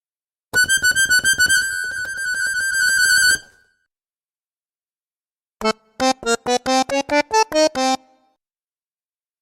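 Two short accordion sound-effect cues. The first is a single high note repeated rapidly for about three seconds. After a brief silence comes a quick run of about a dozen short, detached notes that jump between pitches.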